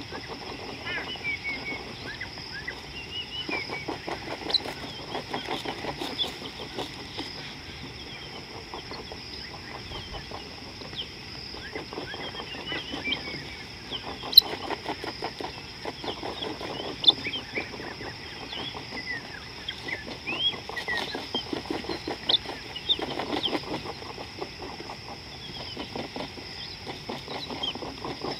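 Wild birds calling: many short, high chirps scattered throughout, and several runs of rapid, low pulsed calls a few seconds long, over a steady high-pitched whine.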